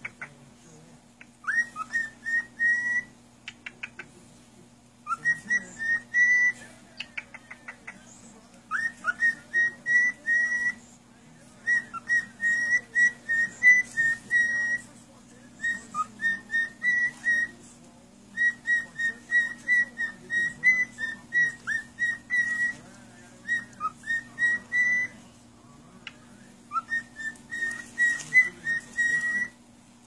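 Parrot whistling in phrases of quick, repeated short notes, each a brief upward slide, with pauses of a second or two between phrases, over a steady low hum.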